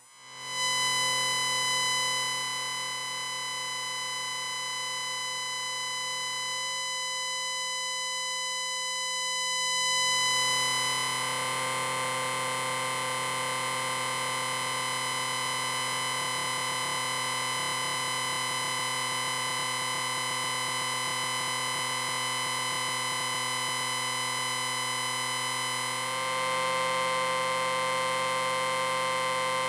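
Science-fiction 'electric ring' sound effect: a steady electronic buzzing drone with many overtones. It fades in within the first second, then swells louder about ten seconds in and again near the end.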